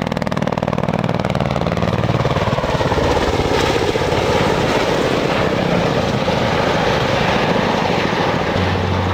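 Ka-50 Black Shark helicopter with its coaxial rotors and twin turboshaft engines running loud and steady, with a rapid rotor chop over the turbine noise.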